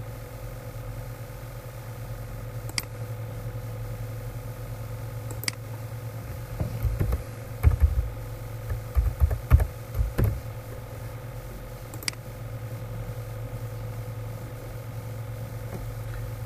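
Computer keyboard and mouse clicks over a steady low electrical hum: a few single sharp clicks, then a run of low knocks of typing in the middle.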